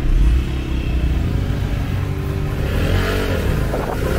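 Small 50cc moped engines running and pulling away, with wind rumbling hard on the microphone. In the second half the engine note wavers up and down as the bikes gather speed.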